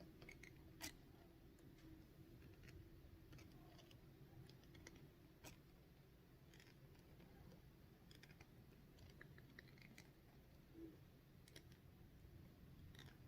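Near silence with faint, irregular snapping clicks of a twisted cotton thread opening and closing as it plucks upper-lip hairs.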